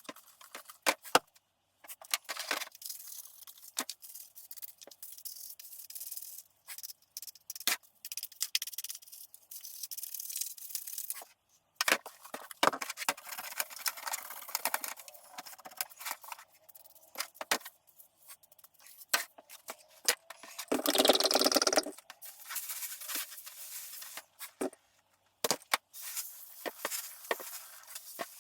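Scrubbing, scraping and wiping on the housing of a Poulan Pro chainsaw during cleaning: irregular rubbing strokes with small clicks and knocks. About two-thirds of the way through there is a louder rushing sound lasting about a second.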